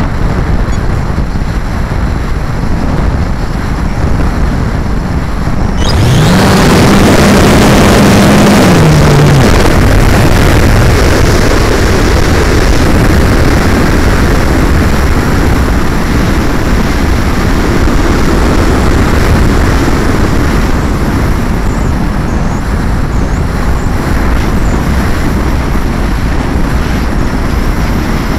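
Air rushing over the onboard camera of a Plasma 2 electric hotliner in fast flight. About six seconds in, the electric motor comes on and the rush grows suddenly louder, with a motor tone that rises, holds for about three seconds, then steps down and fades. The rush of air stays loud and eases off slowly toward the end.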